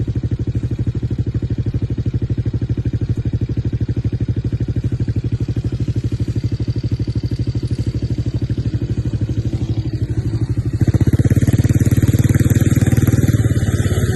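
Tornado 250 quad's engine running with a steady, evenly pulsed beat, turning louder and harsher about eleven seconds in as it picks up revs.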